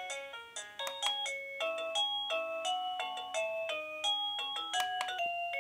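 KooPower wireless doorbell receiver playing its electronic chime melodies: a quick run of bell-like notes stepping up and down, about three notes a second, with a note held near the end.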